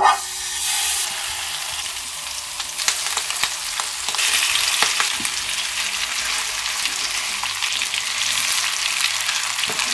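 Pieces of hilsa fish sizzling in hot mustard oil in a non-stick pan, with scattered pops. The sizzle starts suddenly as the fish goes into the oil and grows louder about four seconds in.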